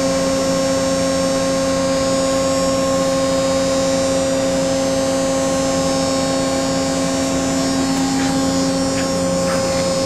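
Steady hum from a powered-up Okuma & Howa Millac 630H CNC horizontal machining center, several even tones held without change.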